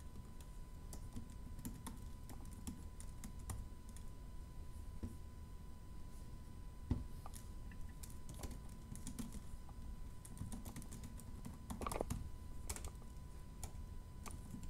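Typing on the built-in scissor-switch keyboard of an M1 MacBook Pro: faint, irregular key taps as a password is entered, with a slightly louder tap about halfway through.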